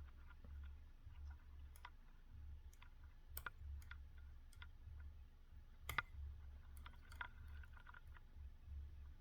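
Faint, scattered metallic clicks and ticks of a hook pick working the pins of a BiLock NG lock, with one louder click about six seconds in. A steady low hum runs underneath.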